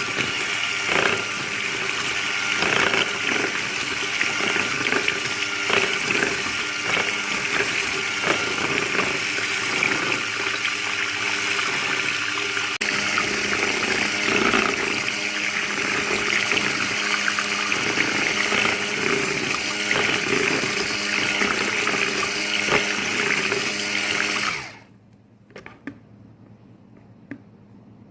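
Electric hand mixer running in a bucket of soap oils and lye solution: a steady motor whine with liquid churning, as the mix is blended so that saponification starts. It switches off abruptly about 24 seconds in, leaving a few faint clicks.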